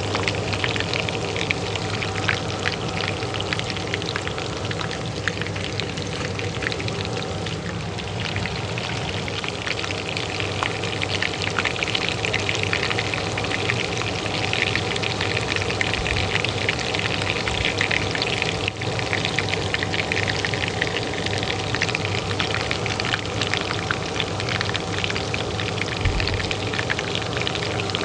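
Hot oil frying in a pan, a dense continuous crackle and sizzle, over the steady hum of a kitchen range hood fan.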